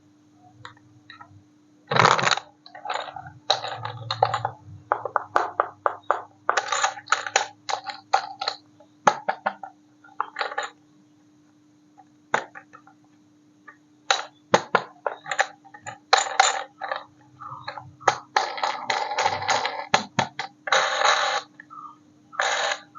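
Handling noises from unboxing a toy RC crane: an irregular run of clicks, scrapes and crinkles as packaging and toy parts are handled, over a faint steady hum.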